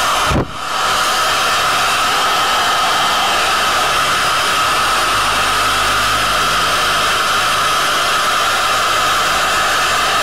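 Hot air rework gun blowing steadily, a loud even rush of air with a faint steady whine, used to reflow SMD solder on a tablet's USB connector. A brief low thump comes about half a second in.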